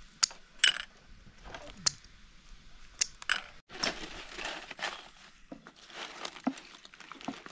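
A few sharp clicks, then thin, dry flatbread crackling and rustling as hands handle a stack of it on a metal tray.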